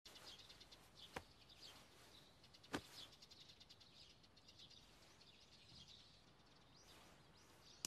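Faint birdsong: many short high chirps, with two short clicks about a second in and just under three seconds in.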